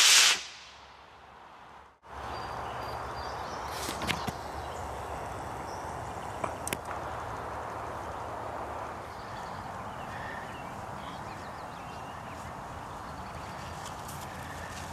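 F32-8T model rocket motor's rushing exhaust cuts off at burnout and dies away within the first second. After a break, a steady background hiss follows, with a few sharp clicks about four and seven seconds in.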